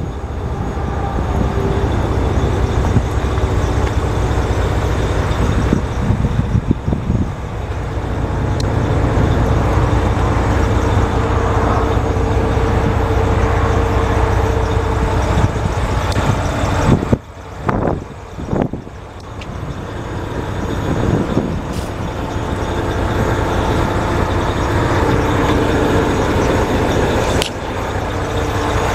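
Diesel engine of a Volvo VHD truck idling steadily with a heavy low rumble, heard close up beside the truck, with a brief drop in level a little past halfway.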